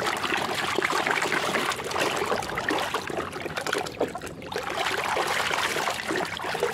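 Water sloshing and splashing in a tub as a hand scrubs a plastic toy dump truck through soapy water, with trickling as the toy is lifted near the end.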